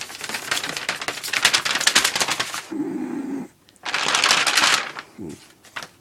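A cat chasing torn paper: rapid scrabbling and rustling of claws and paper. A short low voice-like sound comes about three seconds in, followed by another burst of rustling.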